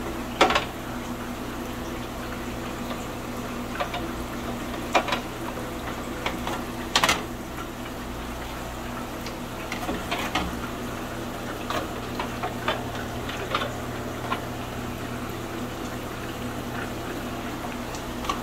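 Steady bubbling and trickling of aquarium water under a constant hum from the fish room's pumps and air lines, with scattered short clicks and splashes as a fish net is worked through a glass tank.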